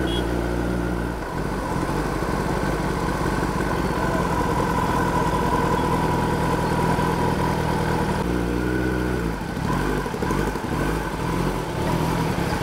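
Kawasaki Ninja ZX-10R's inline-four engine running at steady revs while the bike climbs a hill road.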